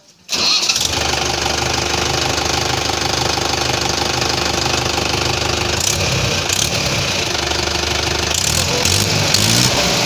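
Mahindra Yuvo tractor's four-cylinder diesel engine running steadily at idle, picked up close to its exhaust silencer. It cuts in suddenly a moment after the start.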